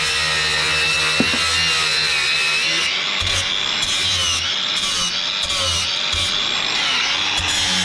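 Angle grinder cutting through a steel bar clamped in a vice, running steadily under load with a high whine that wavers as the disc bites.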